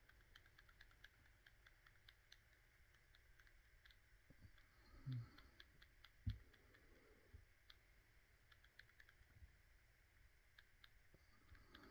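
Near silence: quiet room tone with faint, scattered small clicks and two soft low bumps, about five and six seconds in.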